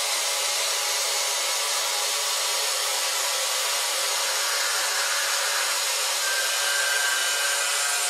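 End mill on a five-axis machining centre trochoidal-milling a titanium blisk, with liquid-nitrogen cryogenic cooling and MQL fed through the spindle and tool: a steady hissing cutting noise, with a faint high tone joining near the end.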